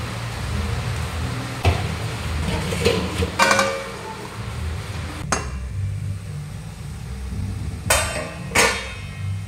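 Metal cookware clattering: a steel plate lid is set on an aluminium kadai with a ringing clank about three and a half seconds in, and near the end it is lifted off and the pan is knocked and scraped with a spatula. A steady low hum runs underneath.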